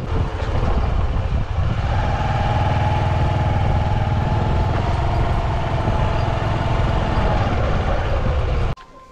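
Motorcycle engine running steadily while riding a rough dirt road, with road and wind rumble; the engine note holds and sags a little, then the sound cuts off suddenly near the end.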